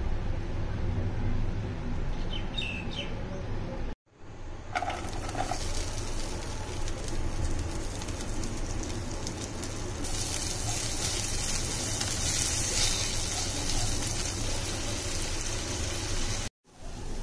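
Long green beans frying in oil in a non-stick pan: a steady sizzle that grows louder about halfway through. Before it, a low hum and a brief high chirp.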